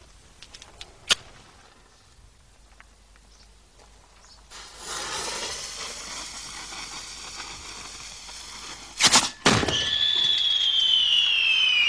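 A single clack, then the lit fuse of a small gunpowder firework mortar fizzing for several seconds. The mortar fires with a sharp bang about nine seconds in, and the shell's high whistle follows, falling slowly in pitch.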